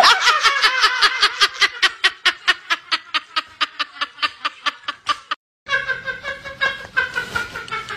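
A flock of white domestic ducks quacking: a long, rapid run of quacks, about five a second, that grows fainter, breaks off a little past five seconds in, and starts up again after a short gap.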